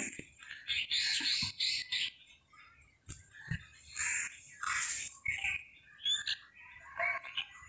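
Small birds chirping in short repeated bursts, with a few soft knocks of a knife slicing through ash gourd.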